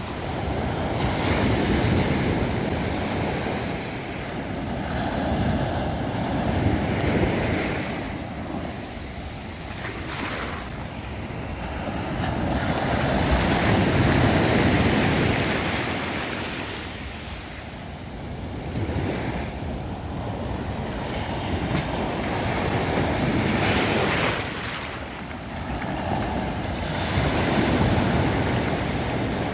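Sea waves breaking on a beach, the surf swelling and washing back in slow surges every few seconds, with some wind on the microphone.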